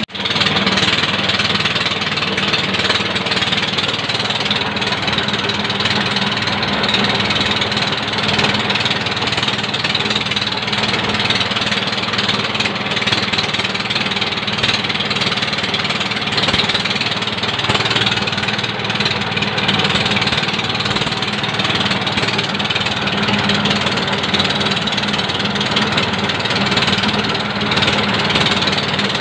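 Old 7 hp Yanmar diesel engine running steadily under load, driving a rice mill that is husking and milling palay: a continuous engine chug mixed with the mill's rushing, rattling grain noise.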